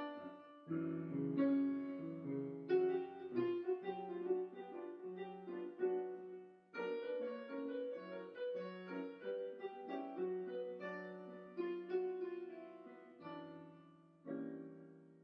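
Solo piano music playing slow chords and a melody, notes struck and left to ring and fade.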